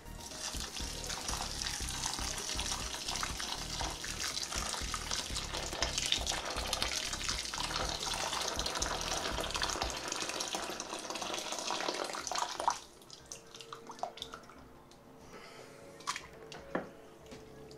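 Water pouring from a stainless steel kettle into a plastic fermenting bucket of mashed blackberries and rhubarb, a steady splashing stream that stops about thirteen seconds in. A few faint knocks follow near the end.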